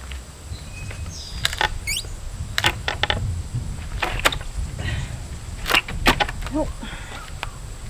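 Pallet boards being pried up with a pallet buster: a string of sharp cracks and creaks as the wood and nails give, with a short rising squeak about two seconds in. The board is stubborn and slow to come free.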